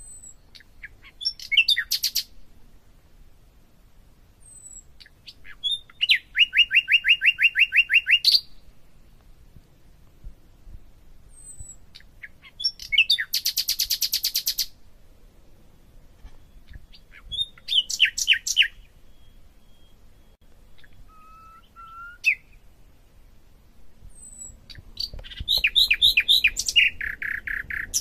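A songbird singing in separate phrases every few seconds. Each phrase opens with a short note and runs into a fast trill of rapidly repeated high notes.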